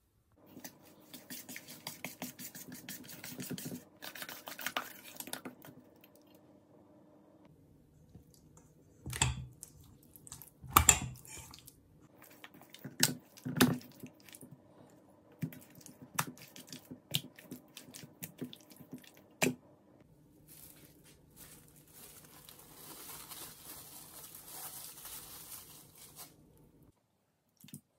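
Kitchen food-prep sounds from a stainless-steel mixing bowl: a metal spoon clinks and scrapes rapidly as yoghurt and spices are stirred, then come several loud sharp knocks. Near the end, plastic cling film rustles for about five seconds as it is stretched over the bowl.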